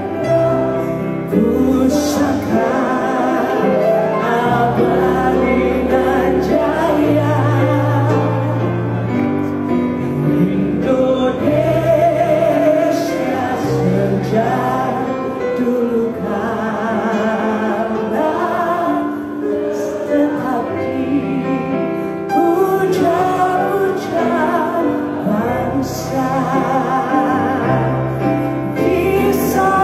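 A woman singing live into a microphone, her sustained notes wavering with vibrato, over a keyboard accompaniment with held bass notes, heard through the hall's amplification.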